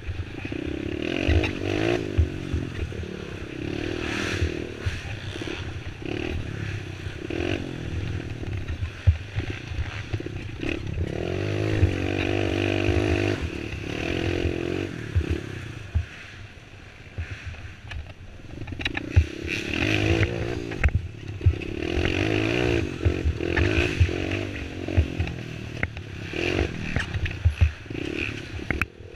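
Youth quad (ATV) engine revving up and down as it is ridden hard over a rough trail, easing off for a few seconds about halfway through, with knocks and clatter from the machine hitting bumps.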